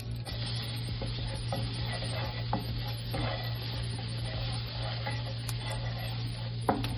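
Butter sizzling with chopped garlic and onion in a nonstick frying pan, stirred and scraped around with a plastic spatula, with light scrapes and taps of the spatula on the pan. The sizzle picks up just after the start.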